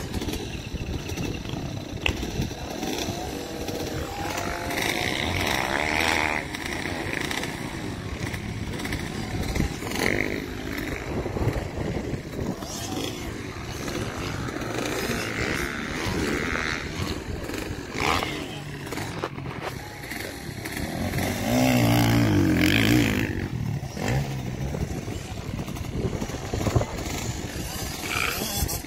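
Dirt bike engine running and revving, rising and falling in pitch, with a louder stretch about two-thirds of the way through.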